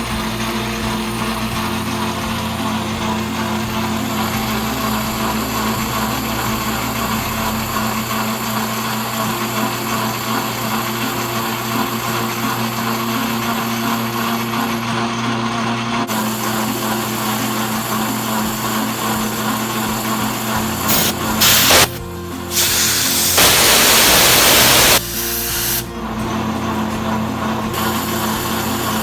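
Metal lathe running as it cuts brass, a steady mechanical hum under background music. Near the end a loud hiss lasts about two seconds.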